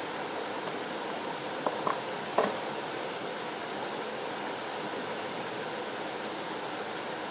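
Steady rush of a waterfall and mountain stream. Three short, sharp sounds come between one and a half and two and a half seconds in; the last is the loudest.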